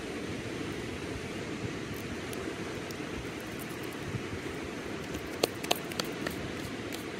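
Steady low rush of surf breaking on a sandy beach. A few sharp clicks sound about five and a half to six seconds in.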